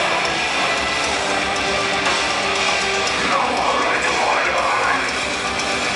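Metalcore band playing live, a steady wall of loud, heavy electric guitar, heard from within the crowd.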